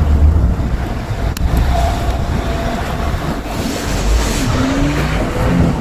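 A car engine running under load over a heavy low rumble, its pitch rising briefly about two seconds in and again near the end, with one sharp click.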